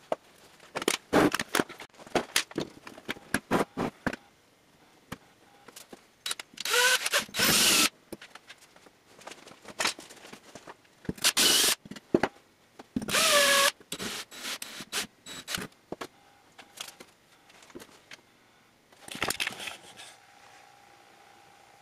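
Clicks and knocks of a steel ammo can being handled, then several short bursts of a handheld power tool whirring, its pitch rising and falling as it speeds up and slows down.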